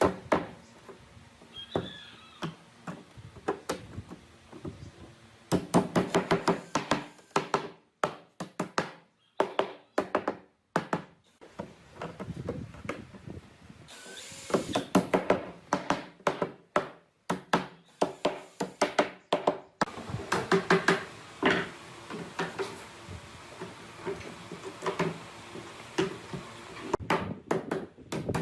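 Woodworking shop sounds: repeated knocks and taps of tools on wood, with several short runs of rapid clicking over a low hum, like a power tool at work.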